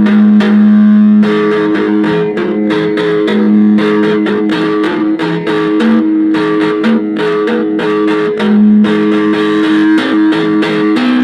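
Guitar music: a plucked string instrument picks quick repeated notes over steady held low notes, with no singing.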